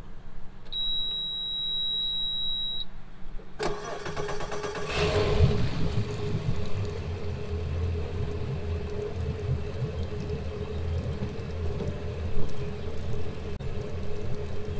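Boat outboard motor being started: it turns over a few seconds in, catches with a loud burst about five seconds in, then idles steadily with a low rumble and a steady higher hum over it.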